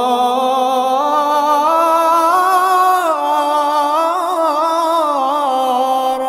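A male voice sings one long wordless melisma with no instruments, holding each note and ornamenting it with small trills as the pitch steps up and down. It breaks off about six seconds in.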